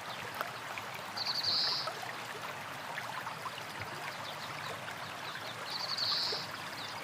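Running water with a steady rush, and a small bird giving a short, high-pitched rapid trill twice, about a second in and again near the end.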